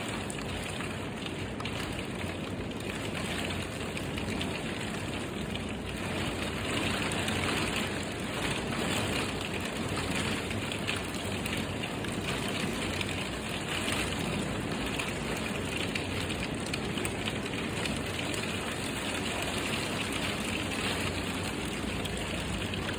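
Steady rain falling and pattering on hard surfaces, a dense patter at an even level.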